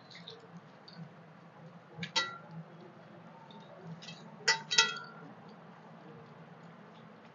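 Eating rice by hand from stainless steel plates: soft squelching and finger clicks, with ringing metal clinks of fingers or bangles on the plates, once about two seconds in and twice in quick succession about four and a half seconds in.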